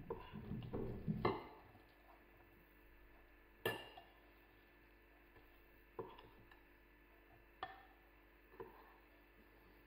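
Bread dough being kneaded by hand in a glass bowl: a cluster of soft knocks in the first second and a half, then four separate clinks a second or two apart as the glass bowl and a spoon knock against each other.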